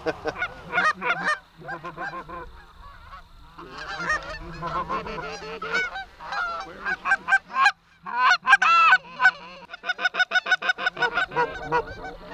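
Canada goose honks and clucks, many overlapping in quick succession, with a run of rapid, evenly spaced honks near the end.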